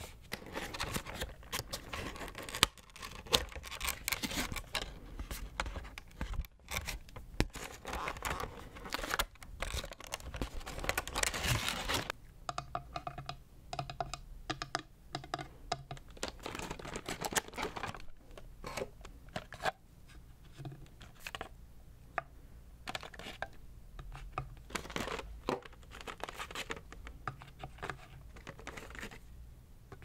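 Fingernails tapping and scratching on a cardboard box, dense and scratchy at first. About twelve seconds in it changes to fingernail tapping and scratching on a wooden tray, a run of separate quick taps.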